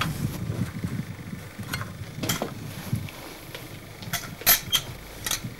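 A miner's gas-testing gear being handled: scattered sharp metallic clicks and knocks, the loudest about four and a half seconds in, over a low rumble of handling and movement.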